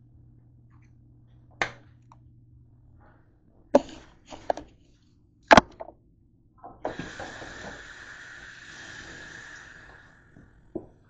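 Several sharp knocks and clatters of kitchenware being handled, the loudest about five and a half seconds in, then about three seconds of steady hissing and one more knock near the end.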